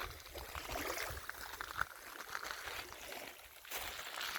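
Small lake waves washing and trickling on a sand and pebble shore, with gusts of wind rumbling on the microphone.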